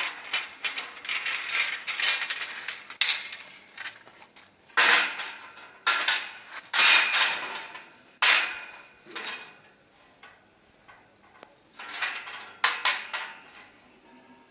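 Steel bars clanking and scraping against each other as they are shifted and laid into place by hand, in a run of irregular metallic knocks and rattles with a short ringing after each, with quieter gaps between the clusters.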